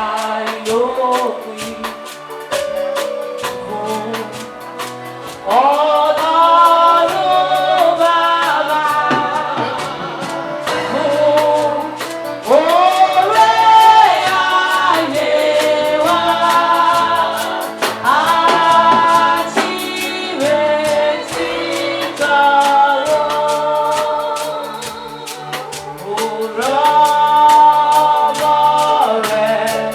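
Gospel praise music: a band with a steady drum beat and voices singing together, the singing swelling into louder phrases every few seconds with softer passages between.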